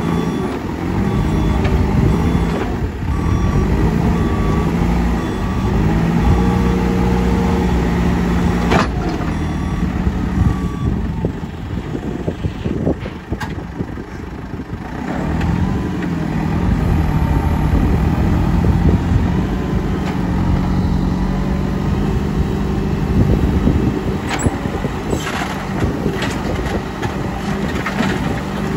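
JCB 3CX backhoe loader's diesel engine revving up and down as it works, with its reversing alarm beeping steadily for the first ten seconds or so. The engine eases off about twelve seconds in, picks up again around fifteen seconds, and a few sharp clanks come through.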